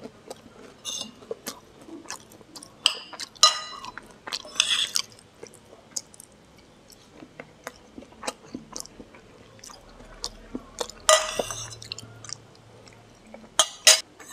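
Close-miked chewing of food, with scattered sharp clinks of a metal spoon on a ceramic plate and a few louder scraping bursts.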